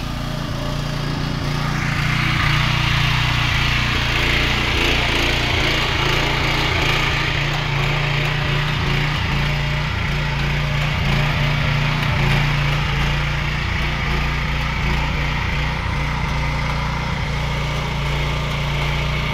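Small petrol engine running steadily on a Wagner HC 970G airless sprayer, driving its pump as it draws bitumen waterproofing from the bucket. A steady hiss sets in about two seconds in, over the engine's even drone.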